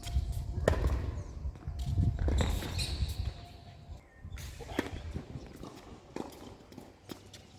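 Tennis ball impacts: a series of sharp pops, irregularly spaced, from the ball being struck and bouncing on the court, with a low rumble through the first three seconds.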